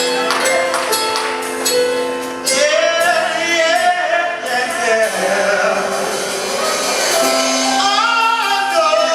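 Live gospel song: singing over held accompanying chords, with a voice sliding through long held notes in the middle and again near the end. There are percussion strikes in the first couple of seconds.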